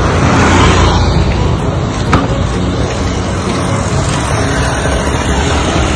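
Wind buffeting the microphone, a loud, steady rumbling noise, with a single sharp click about two seconds in.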